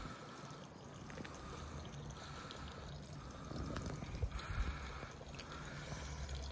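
Water trickling steadily from a bronze dragon spout into a stone temple water basin (chozubachi).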